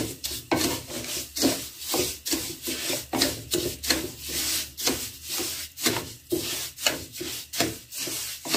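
Wooden spoon stirring sugar moistened with a little water in a pan, scraping the wet sugar crystals against the pan in strokes about twice a second.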